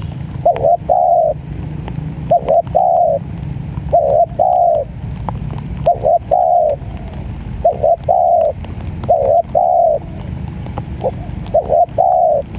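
Spotted dove cooing its repeated phrase, two quick notes and a longer rolling coo. The call comes about every one and a half to two seconds, seven or so times.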